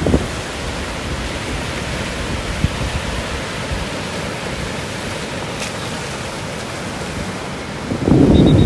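Sea surf washing in a steady, even hiss. About eight seconds in, wind buffets the microphone with a loud low rumble.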